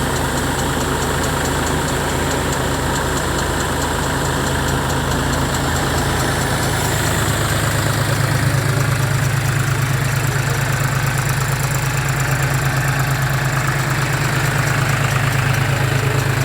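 Tractor diesel engine running steadily, driving a tractor-mounted flour mill. The low engine hum grows a little louder and more throbbing from about seven seconds in.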